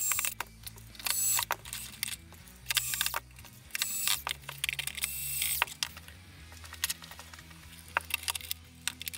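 Small cordless screwdriver whirring in five short bursts over the first six seconds, driving screws into the plastic hull of a 1/16 RC tank to close it up; then a few small clicks.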